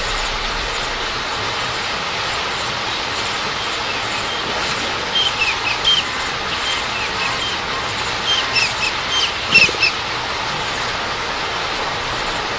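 Steady rush of flowing river water, with a bird calling in short, repeated high chirps from about five to ten seconds in.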